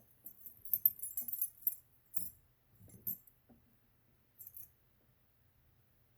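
Light metallic clinks and rattles of small lock parts being handled at an opened American Lock 1100 padlock core. A quick cluster comes in the first couple of seconds, then a few single clicks, and it goes almost silent for the last second or so.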